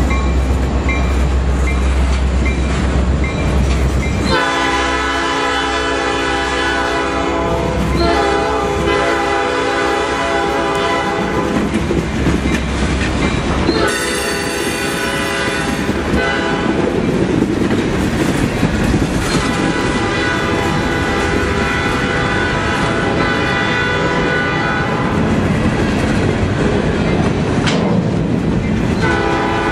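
Norfolk Southern freight train rolling past close by: freight cars rumbling and clacking over the rails. Over this, a long chord-like tone sounds several times, which fits a locomotive horn blowing a crossing signal ahead.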